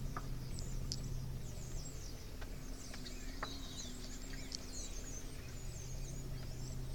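Small birds chirping and twittering in quick, overlapping calls, over the steady low hum of a car engine running slowly.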